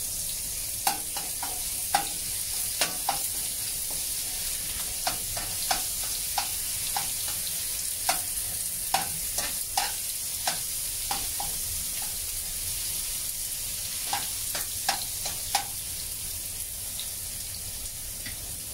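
Curry paste and minced garlic sizzling gently in oil in a wok over low heat, with a steady hiss. A spatula stirring the paste knocks and scrapes against the wok in clusters of short clacks.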